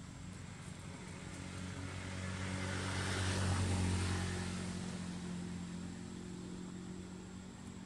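A motor vehicle driving past on the road. Its engine hum and tyre noise grow louder, peak about three and a half seconds in, then fade.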